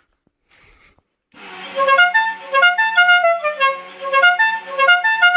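Stebel five-trumpet musical air horn, its compressor driving the trumpets in turn to play a repeating tune of short stepped notes. It starts about a second in, builds up briefly, and the notes then come clear.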